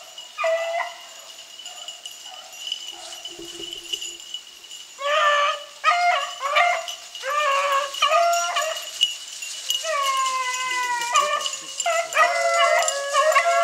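Beagles baying: a couple of calls at first, then from about five seconds in a string of short bays roughly two a second, one long drawn-out howl that falls slightly in pitch, and more rapid baying near the end.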